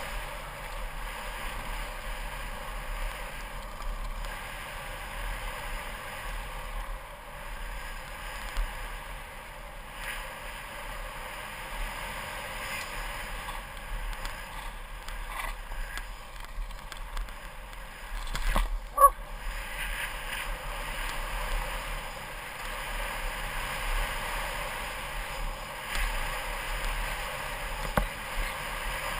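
Mountain bike riding fast down a wet dirt-and-gravel trail: a steady rush of wind and tyre noise with scattered rattles and knocks from the bike. One sharp, loud knock comes about two-thirds of the way through.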